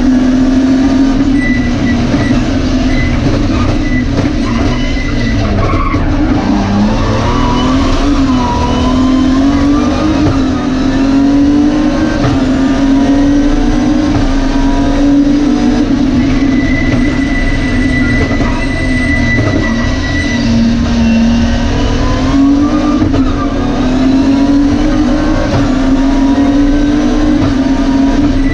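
BMW E30 rally car's engine at speed on a stage, heard from inside the cabin. It is loud and held high in the revs, its pitch rising and falling with the throttle, with a brief dip about six seconds in.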